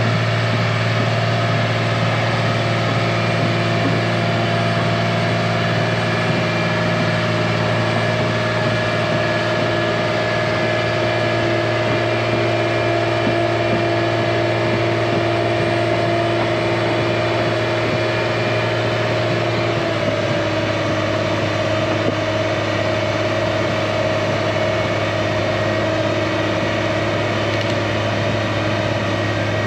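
Heavy earthmoving machine's diesel engine running steadily. Its pitch drops slightly about two-thirds of the way through as the engine speed eases.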